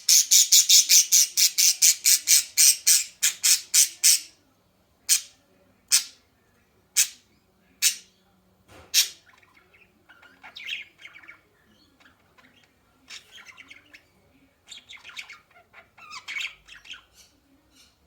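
A bird giving loud, harsh squawks: a fast run of about five calls a second for four seconds, then single calls about once a second, then softer chattering calls in short clusters.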